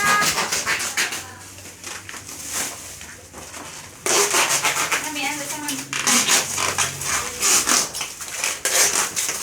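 Packaging crackling and rustling as it is handled, with many rapid little crackles. It is quieter at first and gets louder about four seconds in.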